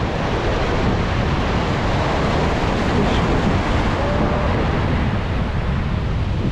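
Sea surf surging and breaking around concrete tetrapod blocks, a steady rushing wash, with wind buffeting the microphone.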